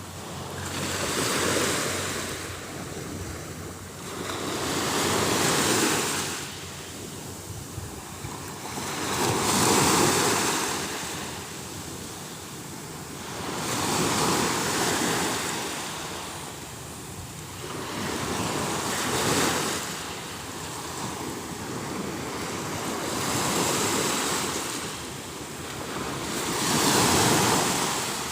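Waves breaking on a shore, a surge of surf washing in about every four to five seconds.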